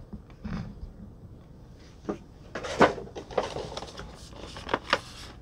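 Rigid clear plastic packaging and card being handled and put down: scattered sharp clicks, with a crinkly plastic rustle about three seconds in.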